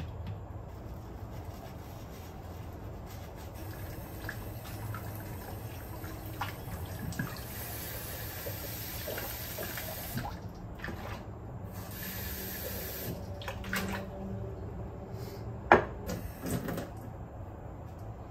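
Kitchen tap running on and off into a stainless-steel sink as a bottle and a glass are rinsed, with small clinks of dishware. A single sharp knock late on is the loudest sound.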